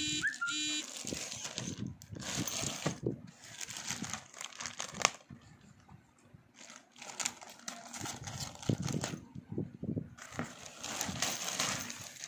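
A thin plastic sleeve crinkling and rustling in irregular bursts as a laptop bag wrapped in it is handled, mixed with cardboard box handling. There is a sharp crackle about five seconds in, and two brief squeaky tones right at the start.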